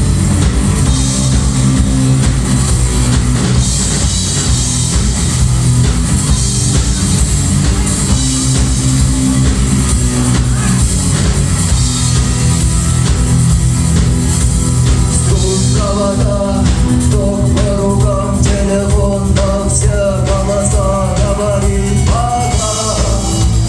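Rock music with a drum kit and electric guitar; a singing voice comes in about two-thirds of the way through.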